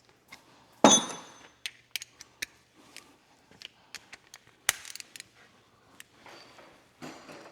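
Metal hand tools clanking and clicking on exhaust hardware: a sharp, ringing metal clank about a second in, another near five seconds, and scattered lighter clicks and taps between.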